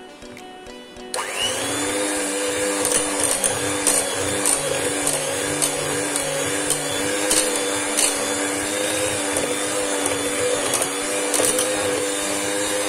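Electric hand mixer switched on about a second in, its motor then running steadily at low speed as the beaters whip an ice cream base in a steel bowl. Scattered clicks of the beaters knocking against the bowl.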